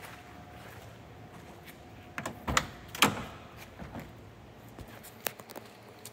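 Car door of a 1978 Chevrolet Corvette coupe being unlatched and swung open: a few sharp latch clicks about two seconds in, the loudest near three seconds, then a few lighter knocks.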